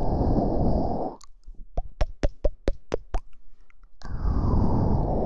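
Close-miked mouth sounds: a breath blown onto the microphone, then a quick run of about nine sharp mouth pops over two seconds, then a second breath blown onto the microphone about four seconds in.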